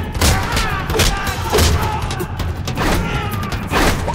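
Film fight soundtrack: a rapid series of punch, kick and body-hit sound effects over loud dramatic music.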